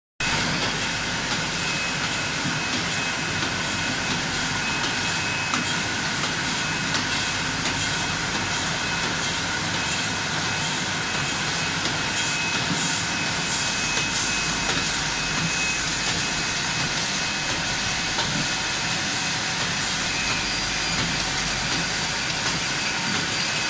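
Steady machinery din of a coconut milk bottling line running: an even hiss with a few constant whining tones from motors, fans and conveyors, and occasional faint clicks.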